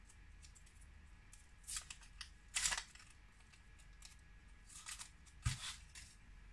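Close handling noises of small objects: a few short scratchy rustles and scrapes, the loudest about two and a half seconds in, and a soft knock about five and a half seconds in.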